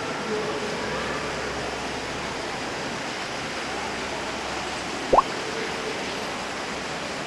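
Steady hiss of ambient noise in a large underground stone-quarry hall, with faint distant voices. About five seconds in, a short rising squeak is the loudest sound.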